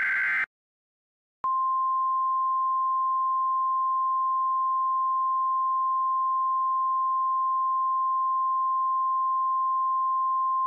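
Emergency Alert System broadcast: a burst of the harsh warbling digital data header ends half a second in, and after about a second of silence the single steady attention tone of the alert starts and holds.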